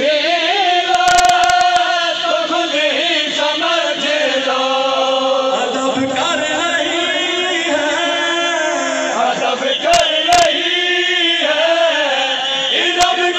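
A man chanting a Shia devotional recitation into a handheld microphone in long, held, melodic lines, with men in the surrounding crowd voicing along.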